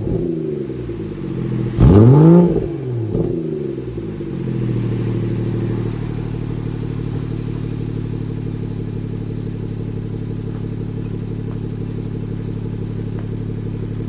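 BMW 340i's stock exhaust at the tailpipe: the B58 3.0-litre turbocharged straight-six is revved sharply once about two seconds in, with a small blip just after. It then settles back to a steady idle.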